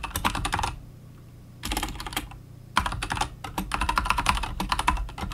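Typing on a computer keyboard: quick runs of key clicks in three spells, the last one unbroken to the end, over a steady low hum.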